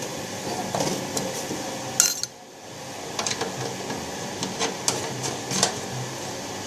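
Scattered small metallic clinks, taps and knocks of tools and parts being handled during installation work. The loudest is a sharp click about two seconds in, followed by a brief quieter moment.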